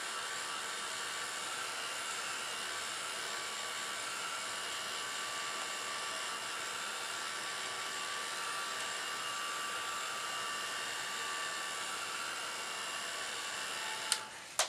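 Small handheld hair dryer running steadily, its fan whirring and blowing air to dry a fresh coat of Mod Podge glue; it stops with a click near the end.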